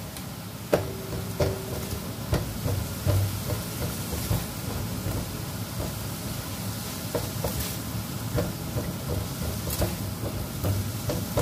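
Pork and carrot pieces sizzling in a non-stick wok while a spatula stirs them, with scattered knocks and scrapes of the spatula against the pan.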